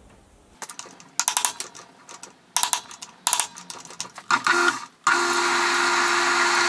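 Steel bar stock knocking and clicking against the metal jaws of a small bench lathe's three-jaw chuck as it is seated and tightened with the chuck key. About five seconds in, the lathe starts and runs steadily with a hum and a hiss.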